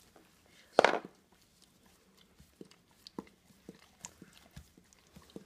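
Close handling noise as a dog's cut paw is wiped with a gauze pad: one loud, brief rustle about a second in, then scattered soft clicks and taps.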